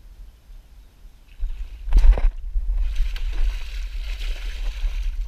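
A bass hitting a topwater frog lure at the surface with a sharp splash about two seconds in, then thrashing on the line while the water splashes and churns. A low rumble on the microphone runs under it from just before the strike.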